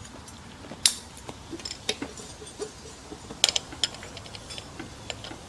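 Scattered light clicks and taps of small parts being handled on a motorcycle, with two sharper clicks about a second in and about three and a half seconds in.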